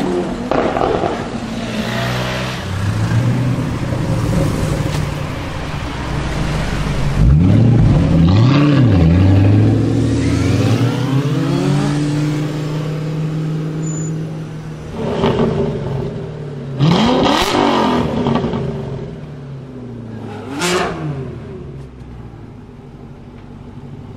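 Supercar engines revving and accelerating: a Lamborghini Aventador's V12 pulling away, then a Ford GT's supercharged V8 with rising and falling revs. Three sharp, loud rev blips come in the second half.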